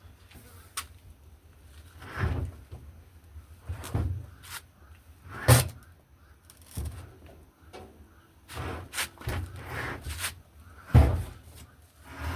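Irregular knocks, thuds and clatter of hard parts being handled and set down, about a dozen in all; the sharpest come about five and a half and eleven seconds in.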